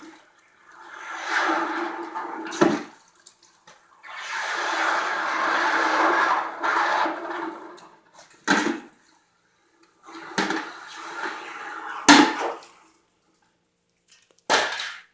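Hot cast metal ingots quenched in a container of water, hissing and sizzling in long stretches of a few seconds each, with sharp knocks of metal between them as ingots are dropped or handled.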